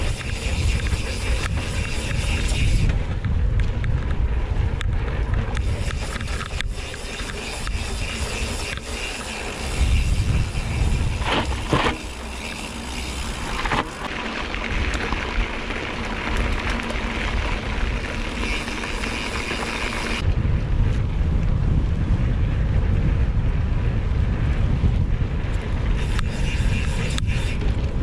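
Wind buffeting a handlebar-mounted camera's microphone while a mountain bike rolls over dirt paths and tarmac, with scattered knocks and rattles from the bike over bumps.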